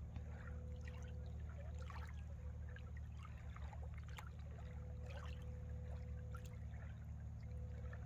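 Small ripples of lake water lapping at the shore in soft, irregular little splashes, over a low steady hum.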